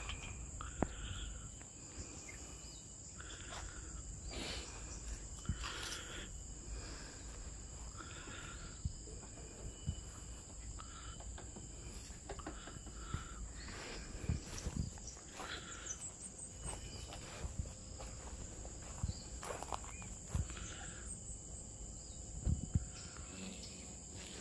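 Steady high-pitched drone of insects such as crickets, with scattered faint rustles and ticks, like steps through garden undergrowth.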